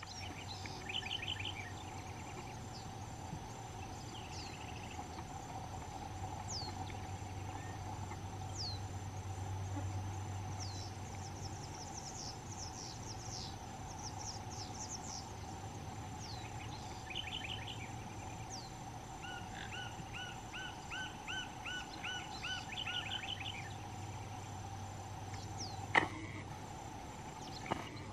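Wild birds calling in a rural outdoor ambience: short, high, falling whistles repeating every second or two, and several bursts of rapid trilled chirping. Behind them is a steady insect drone and a low hum. One sharp knock comes near the end.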